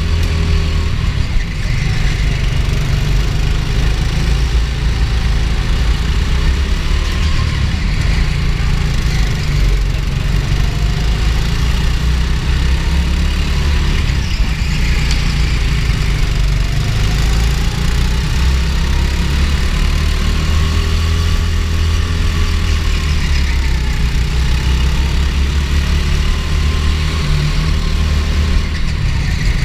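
Go-kart engine running under way, heard from on board the kart: a loud, steady low drone whose pitch slowly rises and falls as the kart speeds up and slows.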